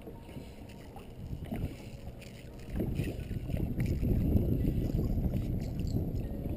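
Wind noise on the microphone mixed with water sounds around a kayak on choppy water, a dense low rushing that gets louder about three seconds in, with a few scattered clicks.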